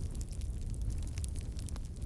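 Campfire burning: a steady low rumble with scattered small crackles and pops from the burning wood.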